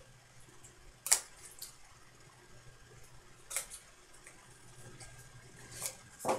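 Three short sharp clicks and taps of a black Panini Dominion hockey card box being handled and opened, the first and loudest about a second in, over a faint steady low hum.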